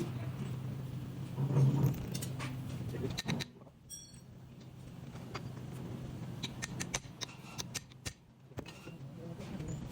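A steady low hum with a heavier knock about a second and a half in, then a run of short, light metallic clicks and clinks.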